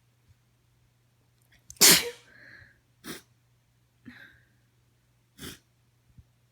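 A woman's allergy sneeze about two seconds in, sharp and by far the loudest sound, followed by three shorter, quieter bursts of breath about a second apart.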